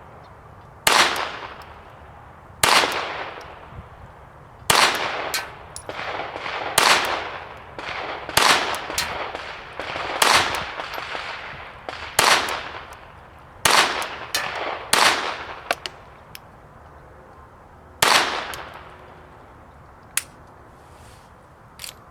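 A Glock 44 .22 LR pistol fires about ten shots, one every one to two seconds at an uneven pace. Each shot is a sharp crack with a short echo tail. Near the end come two faint clicks.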